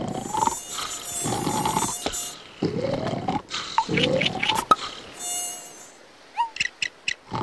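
Cartoon mosquito whining high-pitched over the slow, rhythmic snoring of a sleeping larva, four breaths about a second and a half apart. A few short chirps come near the end.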